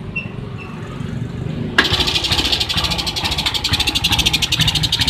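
Suzuki Smash motorcycle's single-cylinder four-stroke engine started, catching suddenly about two seconds in and then running with an uneven 'degedek degedek' stutter. The owner suspects a weak ignition spark behind the rough running.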